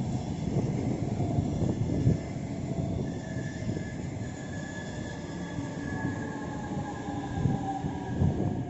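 Double-deck regional passenger train hauled by an electric locomotive rolling past, a steady rumble of wheels on rails. Thin high-pitched tones ride over the rumble from about three seconds in, one of them slowly falling.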